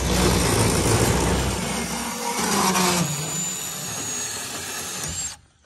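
A cordless power saw running as it cuts through thick copper pipe, a high whine joining in over its last couple of seconds, then stopping abruptly about five seconds in.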